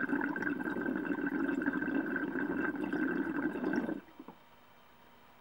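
Water bubbling and gurgling through the percolator and recycler chambers of a glass recycler bubbler rig as air is drawn through it, steady and then cutting off abruptly about four seconds in.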